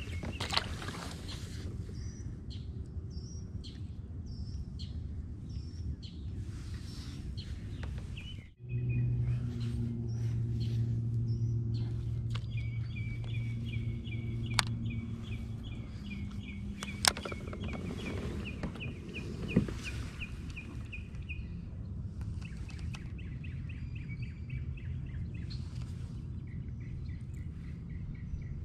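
Lakeside ambience: birds chirping over a steady low background hum. From about halfway, a rapid high-pitched ticking runs in long stretches, and a few sharp clicks stand out.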